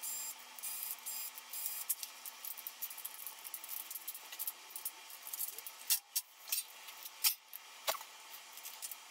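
Quick clicks, taps and clinks of screwdrivers working on a CD player's disc-drive mechanism, with small plastic and metal parts being pried and set down; a few louder knocks come between about six and eight seconds in.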